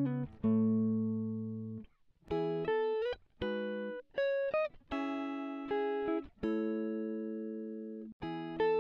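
Background music on guitar: plucked chords and short melodic phrases, each chord ringing and fading, with a few short upward slides between notes.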